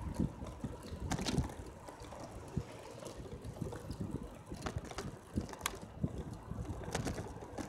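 Wind buffeting the microphone and a steady road rumble from a bicycle riding over asphalt, with a few sharp clicks and rattles scattered through it.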